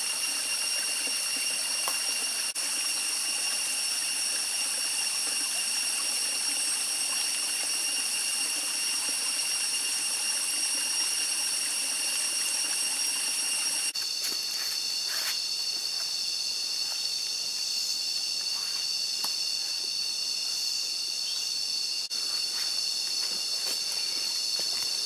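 Dense rainforest insect chorus: a steady, loud, high-pitched buzzing and trilling at several pitches at once. About halfway through, the mix of pitches changes abruptly. Faint clicks and crackles come through in the second half.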